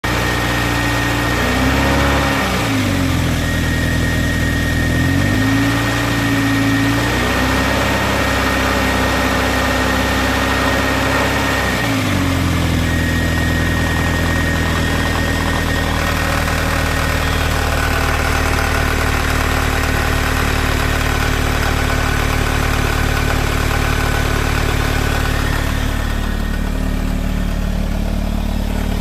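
Toyota MR2's 3S-GE inline-four engine running cold. Its speed dips and rises a few times in the first twelve seconds, then it idles steadily. It carries a knocking noise that only shows up when the engine is cold, which the owner suspects is piston slap.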